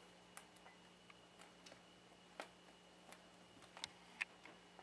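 Near silence over a faint steady hum, broken by scattered faint soft ticks and taps. These are two cats' paws swatting each other and shifting on a bed sheet during play-boxing. The sharpest taps come near the end.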